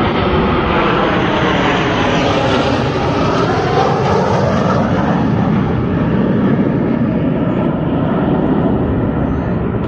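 Loud, steady jet noise from a formation of six jet aircraft flying past, with a faint pitch that slowly bends down and back up as they pass.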